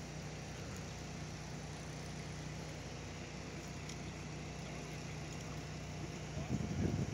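A steady low mechanical hum over an even background rush.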